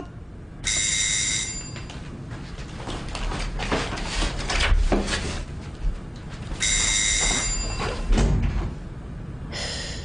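Electric doorbell ringing twice, each ring a steady high buzzing tone lasting about a second, about six seconds apart. Rustling and light knocks sound between the rings.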